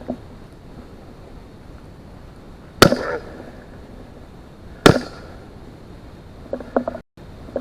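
Two .45 pistol shots about two seconds apart, each a sharp crack with a short echo tail. Short low grunting sounds follow near the end.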